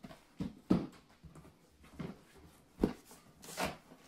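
Hands rummaging in a cardboard box of packed suspension parts: irregular knocks and plastic-wrap rustling, with a sharp knock under a second in and another near three seconds.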